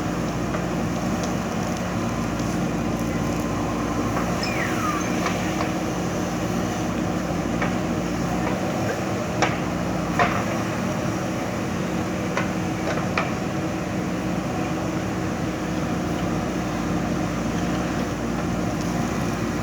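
JCB 3DX backhoe loader's diesel engine running steadily, with a few sharp knocks around the middle.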